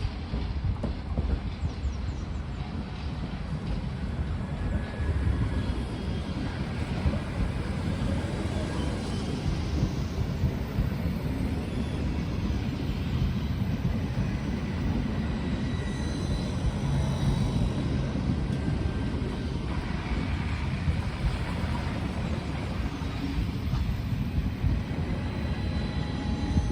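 Two coupled NS Koploper electric multiple units running on the track, a steady rumble of wheels and running gear on the rails.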